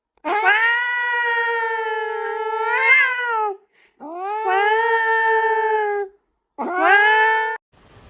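A domestic cat yowling: three long drawn-out calls, each rising at the start, the first about three seconds long and the last about one second, with short silences between.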